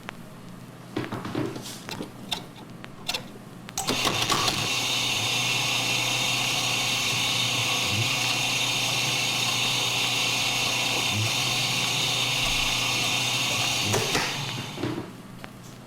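A few clicks and knocks, then a small electric motor switches on abruptly and runs steadily for about ten seconds before cutting off near the end.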